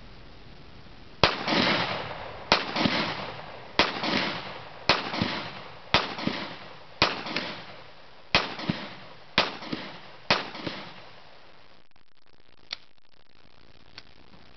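Nine gunshots from a semi-automatic firearm, fired at a steady pace of about one a second. Each crack is followed by a ringing echo.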